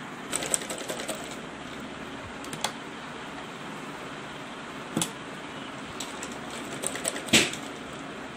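Sewing machine running steadily, stitching a lined fabric panel onto a blouse, with several sharp clicks, the loudest near the end.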